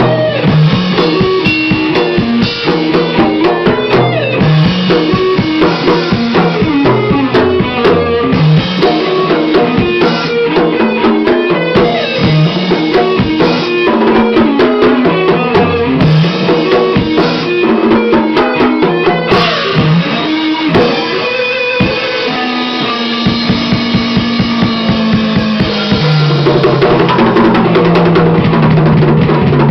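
Heavy metal music: distorted electric guitar playing fast picked riffs over driving drums with bass drum and snare.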